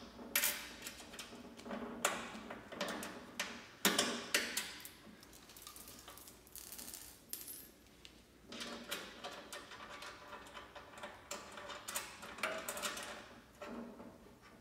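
Small metal hardware clinking and rattling: screws, lock washers and nuts handled and fitted by hand inside the metal cabinet of a bulk candy vending machine. The sound comes as irregular bunches of clicks and taps, with a busy stretch in the second half.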